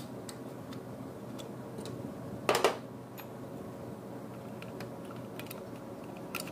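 Scattered light clicks and taps of hand tools and metal fittings being worked on a truck diesel engine, with one louder short clatter about two and a half seconds in, over a steady background hum.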